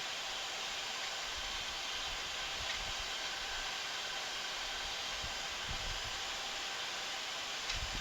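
Steady rushing hiss of airflow and engine noise in the cockpit of an Embraer 175 jet on short final approach.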